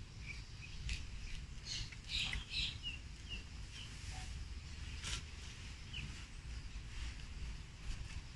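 Woven coconut-leaf strips rustling and crackling in short bursts as a hat brim is handled and string is worked through it. A few faint, short high chirps are heard among the crackles.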